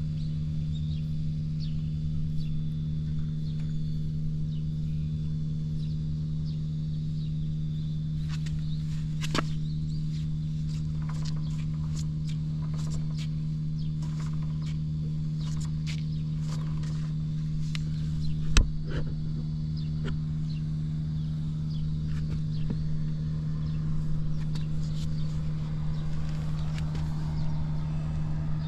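Suzuki GN125H's single-cylinder four-stroke engine idling steadily, a motorcycle the seller bills as free of abnormal noises. A few light clicks mid-way and one sharp knock a little past halfway.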